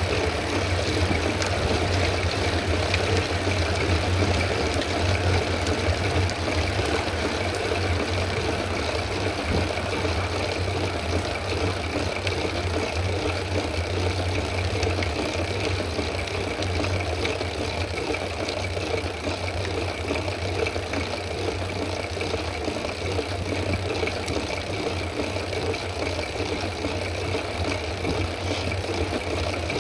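Steady wind rush and low rumble on the microphone of a camera carried on a moving bicycle, with a faint steady whine above it.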